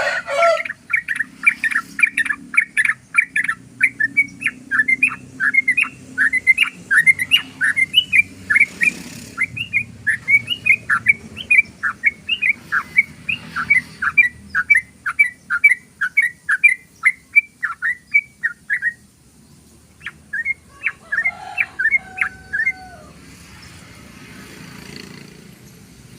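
Yellow-vented bulbul (trucukan) singing its rapid rolling 'ropel' song: a long fast run of sharp chirping notes, about three a second, that breaks off about 19 seconds in and resumes for a short bout a couple of seconds later.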